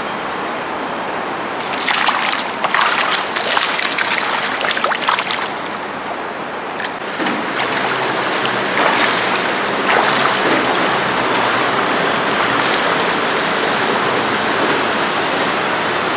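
Shallow river water flowing steadily, with a run of splashes from feet wading through it a couple of seconds in.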